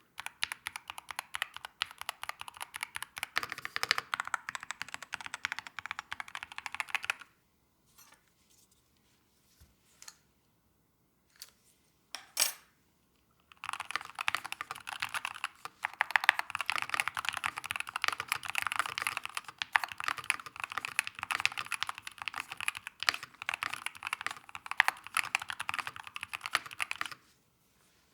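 Keychron K4 HE Special Edition keyboard with its stock Gateron double-rail magnetic (Hall-effect) switches being typed on quickly. The keystrokes pause about a quarter of the way in, leaving a few scattered single presses, one of them louder. Fast typing then resumes and stops shortly before the end.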